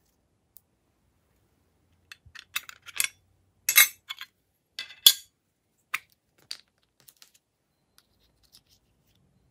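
Small plastic containers and add-in pieces being handled over a slime tray: a quick run of sharp clicks and clatters, the loudest about four and five seconds in, then a few faint ticks.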